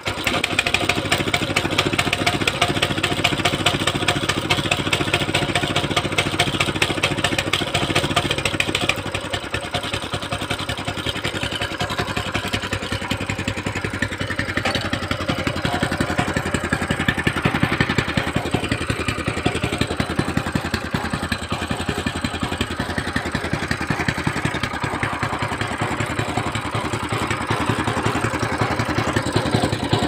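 Small petrol engine of a walk-behind power weeder running in place with a fast, even beat; its note drops and softens about a third of the way through.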